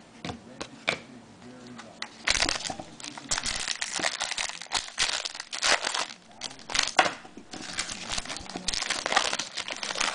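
Trading-card pack wrapper crinkling as it is handled, in a run of dense crackly bursts that start about two seconds in.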